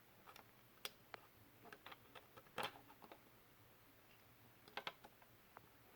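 Faint, scattered clicks and taps of a plastic razor handle and blade cartridge being handled and pushed together, the loudest about two and a half seconds in.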